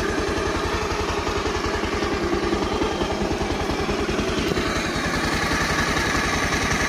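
Bajaj Pulsar 150's single-cylinder four-stroke engine idling steadily with an even beat. It runs smooth after the rebuild and timing reset, with none of the earlier timing-chain clatter.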